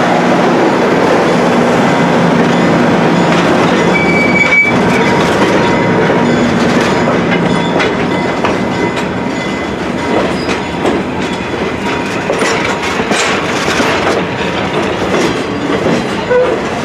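Train passing: a diesel locomotive's engine running steadily, then the wheels of the passing cars clicking over rail joints, with a brief high wheel squeal about four seconds in.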